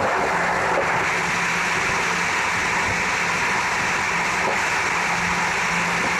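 Electric express train running at speed on the rails, a steady rushing noise heard from the front of the train, with a faint low hum that comes and goes.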